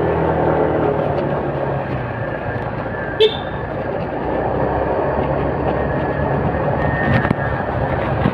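Motorcycle engine running steadily on the move, with wind and road noise on the microphone. A single short, sharp chirp sounds about three seconds in.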